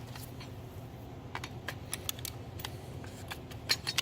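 Irregular light clicks and taps of small plastic and metal parts of a DEF pump being handled and pried apart, coming more often near the end, over a faint low hum.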